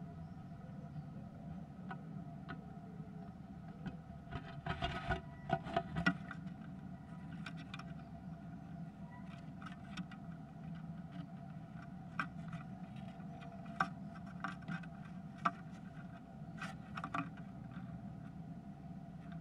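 A great tit moving about inside a wooden nest box: scattered taps and scratches of its feet on the wooden floor and walls, with a denser flurry of scrapes about four to six seconds in. A steady low hum runs underneath.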